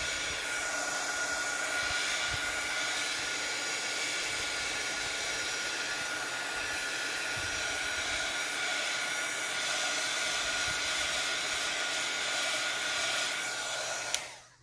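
Handheld craft heat tool blowing a steady rush of hot air with a thin high whine, drying the colour on the paper page. It switches off with a click just before the end.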